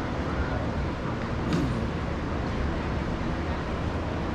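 Steady road-traffic noise, an even low rumble, with a faint click about one and a half seconds in.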